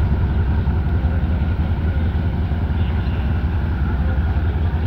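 Passenger ship's engines running with a steady low rumble as the ship pulls away from the quay.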